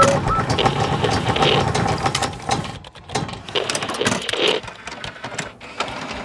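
Sound effects for an animated logo intro: rapid mechanical clicks and ticks, with a whooshing swell about a second and a half in and another past the middle.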